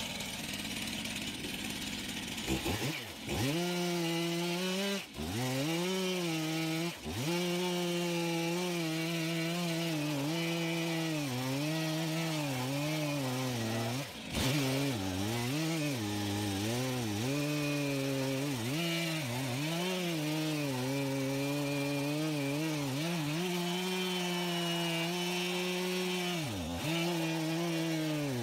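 Two-stroke chainsaw engine running at high revs, its pitch dipping sharply and recovering several times as it is loaded and eased off.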